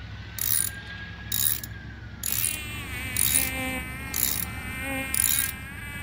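Socket ratchet with a T30 Torx bit clicking in repeated strokes, about one a second, as it backs out a long handlebar screw. From about two seconds in, a mosquito whines close to the microphone, its pitch wavering.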